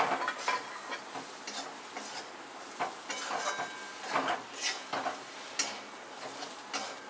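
A spatula stirring and scraping around a metal kadhai, mixing roasted beans into a thick masala, in irregular scrapes over a light sizzle from the pan.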